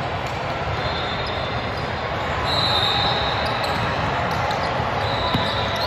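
Steady noise of a basketball game in a gym: crowd and court sounds, with two brief high-pitched tones about half a second long, one around the middle and one near the end.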